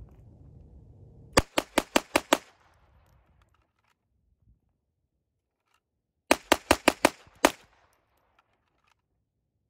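Glock 44 .22 LR pistol fired rapidly in two strings of about six shots each, the first about a second and a half in and the second a little after six seconds, with a pause between.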